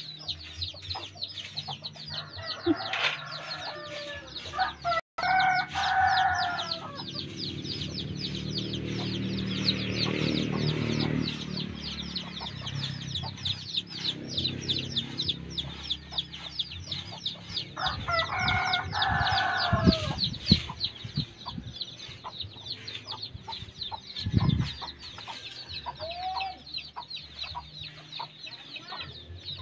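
Chickens clucking, with a rooster crowing about five seconds in and again a little past the middle, over a rapid high-pitched ticking.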